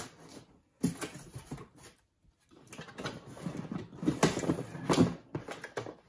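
Irregular rustling and clicking of packaging being handled in a cardboard box, in two spells with a short pause between them.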